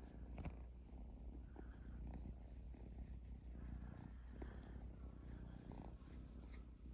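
Kitten purring softly and steadily, with a few faint clicks.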